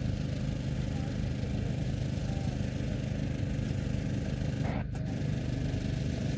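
Small engine running steadily at idle, with an even low hum.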